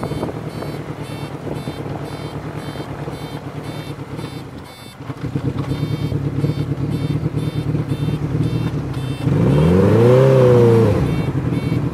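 Motorcycle engine running under way. It eases off briefly about five seconds in, then picks up again. Near the end a loud engine note rises and falls in pitch over about a second and a half.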